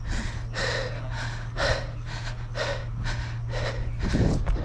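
Heavy, rhythmic panting of a footballer, close to the microphone, about two breaths a second. Near the end, footfalls on the artificial turf come in as he starts running.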